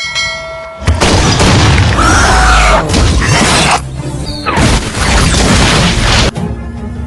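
Intro sound effects over music: a short ringing chime, then about five seconds of loud explosion and crash effects with sweeping tones, easing off near the end.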